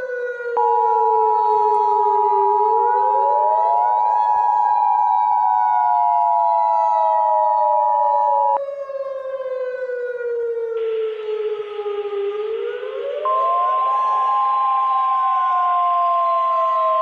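Civil defense siren wailing, its pitch falling slowly, rising quickly and falling again twice. For about the first eight seconds the Emergency Alert System two-tone attention signal sounds steadily over it. About two-thirds in a hiss comes up, and a single steady alert tone starts soon after.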